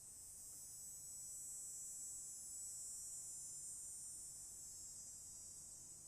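Cicadas singing: a steady, shrill, high-pitched buzz that swells louder over the first couple of seconds and eases slightly near the end.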